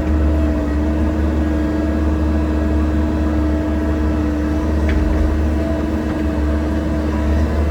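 Excavator's diesel engine running steadily under load: a strong low drone with a steady whine over it.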